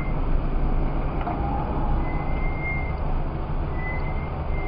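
Steady engine and road noise heard inside a car's cabin as it rolls slowly in traffic, with a faint high tone coming and going a few times.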